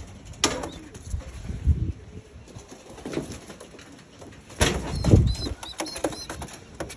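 Young pigeons flapping their wings in a loft, in several short flurries, the loudest about five seconds in.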